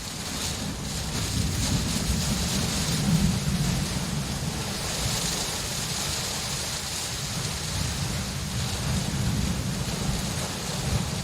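Steady rain falling as an even hiss, over a low continuous rumble that swells about three seconds in.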